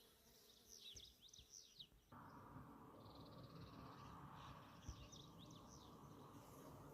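Faint birdsong and insect buzzing: quick high chirps in two bouts, with a steady buzzing hum that starts abruptly about two seconds in.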